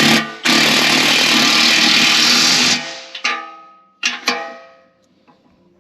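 A sharp strike, then a loud hissing, buzzing burst of about two seconds, then two strikes that ring with clear tones and die away, typical of struck sheet metal.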